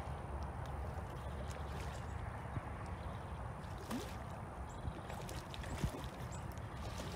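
A hooked redfish splashing and sloshing at the water's surface near the bank as it is played in on a rod, over a steady low rumble.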